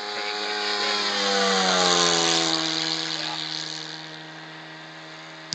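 Hangar 9 Corsair RC model plane's engine in a flyby. The note swells to its loudest about two seconds in, then drops in pitch as the plane passes, and it runs on fainter and lower. The engine is running rich.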